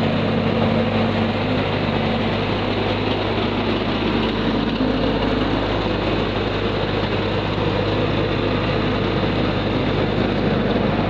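Forklift engine running steadily at an even speed.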